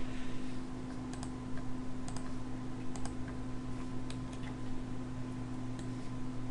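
Computer mouse and keyboard clicks, a few sharp, irregularly spaced taps about a second apart, over a steady low electrical hum.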